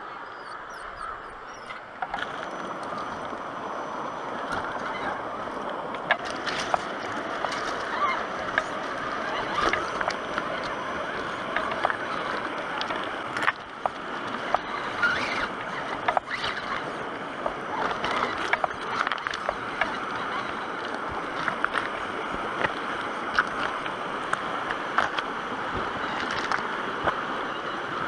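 Axial SCX10 RC rock crawler driving over loose river rocks: frequent sharp clacks of stones and tyres against rock over a steady rushing noise.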